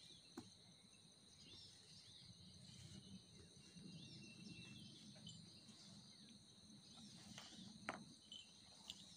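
Faint, steady chorus of insects: a continuous high-pitched drone. A few soft clicks stand out, about half a second in and near the end.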